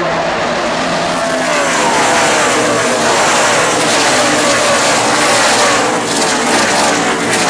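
A pack of NASCAR Truck Series race trucks' V8 engines passing close by in a dense stream. Many overlapping engine notes each slide down in pitch as a truck goes past. The sound builds about a second and a half in and stays loud to the end.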